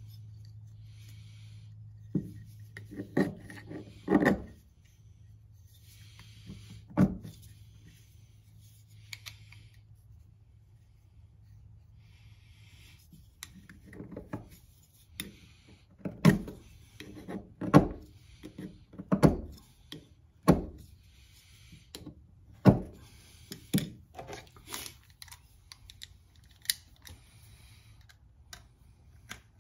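Tools and metal parts being handled on a workbench: scattered knocks, clicks and rubbing as things are picked up and set down, busiest in the second half. A steady low hum stops about four seconds in.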